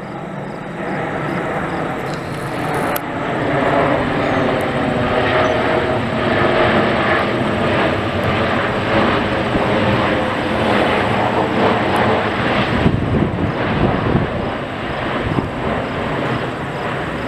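Jet airliner passing close by with a loud, steady engine roar. A whining tone in the roar sinks slightly in pitch partway through.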